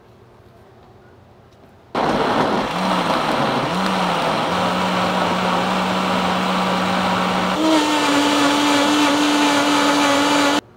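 Countertop blender starting up about two seconds in and blending vegetable pieces with liquid into a purée. The motor's pitch wobbles at first and then holds steady, jumps higher a little past halfway, and the blender cuts off suddenly near the end.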